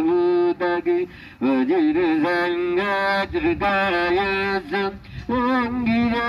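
Buddhist monks chanting Pali verses in a sung melody, holding long steady notes. Brief breath pauses come about a second in and again about five seconds in.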